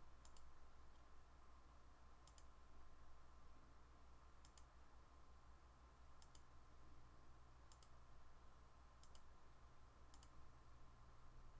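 Faint computer mouse button clicks, about seven of them spaced a second or two apart, each a quick press-and-release pair, over a low steady hum.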